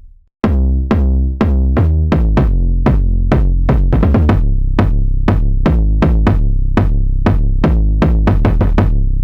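Synthesized pitched kick drums from the Backbone drum re-synthesizer, played as a quick run of notes at changing pitches. Each hit has a sharp click and a deep tonal boom, and the hits come closer together near the end.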